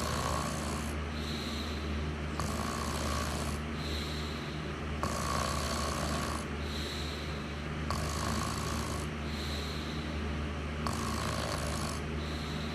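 Someone snoring in slow, even breaths, an in-breath and an out-breath roughly every two and a half to three seconds, over a steady low hum.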